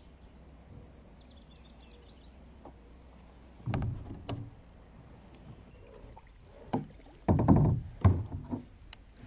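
Knocks and thumps in a kayak as it is handled, a few of them loud, in two clusters: one about four seconds in and a louder one about seven to eight seconds in, with quiet stretches between.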